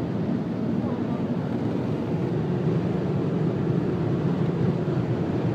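Steady road, wind and engine noise inside a car's cabin while driving at motorway speed.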